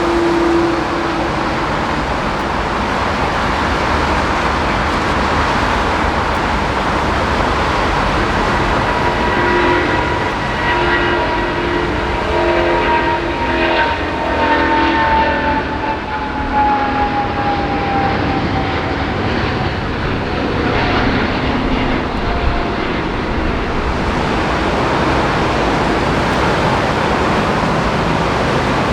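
Jet airliner engine whine that slowly falls in pitch through the middle, over a steady hiss of heavy rain.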